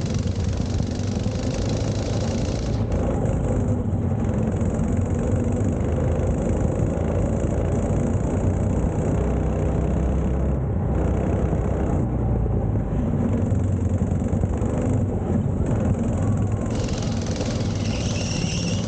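Go-kart's small petrol engine running steadily under way, heard from on board the kart.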